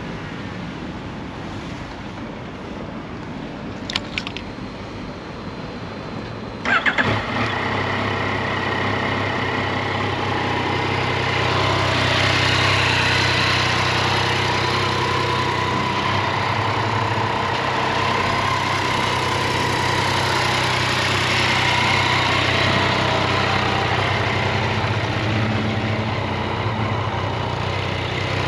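A 2020 Yamaha XSR900's 847 cc inline three-cylinder engine being started. A click comes about four seconds in, the engine catches with a sudden burst about seven seconds in, and then it settles into a steady idle.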